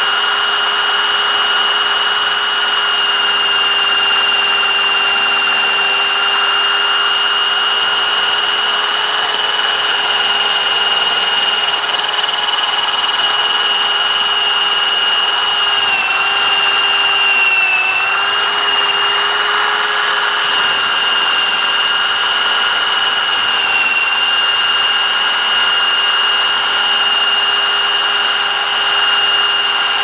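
Bosch Bulldog Extreme SDS rotary hammer spinning a Brasscraft inside pipe cutter inside a 3-inch PVC pipe, a steady motor whine as the cutter works at the pipe wall. About halfway through, the pitch sags briefly twice as the cutter bites and loads the motor.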